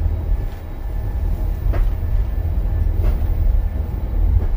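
Wolmi Sea Train monorail car running along its elevated track, heard from inside the cabin as a steady low rumble.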